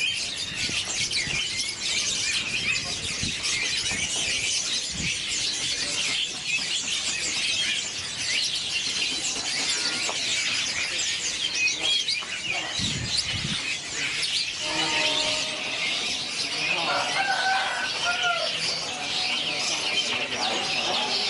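Many caged songbirds chirping at once at a bird market: a dense, unbroken chorus of quick, high chirps and calls, with faint human voices in the background in the second half.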